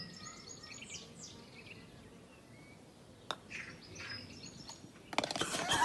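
Small birds chirping and tweeting in short, high calls, with a sharp click about three seconds in and a louder, busier flurry near the end before the sound cuts off.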